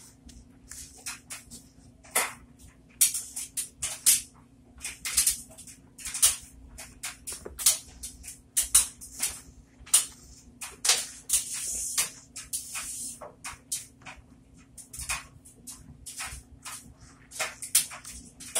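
Soapy sponge soaked in yellow-dyed Mr Clean lemon and bubble bath suds, squeezed and kneaded in a bowl: irregular wet squelches and crackling foam, with a longer squish about eleven seconds in.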